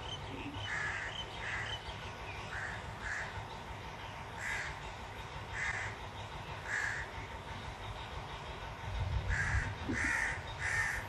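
Crows cawing: a series of short separate caws, several close together near the end, with a low rumble rising about nine seconds in.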